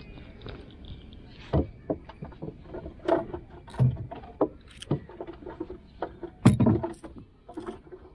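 Irregular knocks and thumps on a wooden boat, with small clicks, as a man shifts about in the boat and handles his fishing gear. The loudest thump comes about six and a half seconds in.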